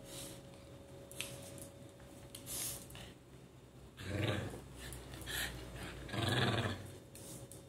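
Small dogs play-growling at each other, with two louder rough growls about four and six seconds in and quieter growling between.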